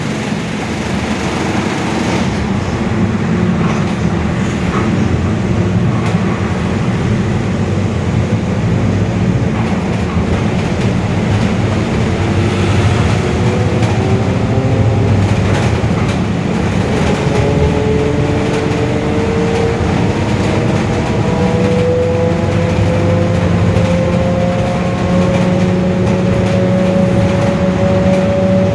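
Mercedes-Benz OF-1721 bus differential whining loudly over the steady engine and road noise. The whine grows stronger about halfway through and rises slowly in pitch.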